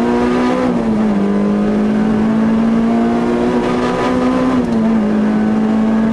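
Peugeot 205 Rallye's four-cylinder engine heard from inside the cabin at speed, its revs climbing steadily in gear and dropping with an upshift about a second in and again near five seconds.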